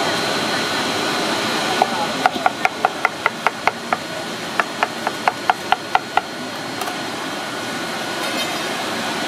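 Knife chopping a guava on a wooden cutting board: a quick run of sharp knocks, about four a second, starting about two seconds in, pausing briefly, then running on until about six seconds in. A steady background hum and hiss sits under it.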